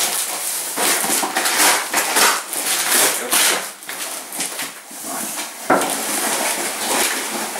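Packaging being rustled and torn open by hand in a run of scratchy bursts, with a sharp knock a little over halfway through.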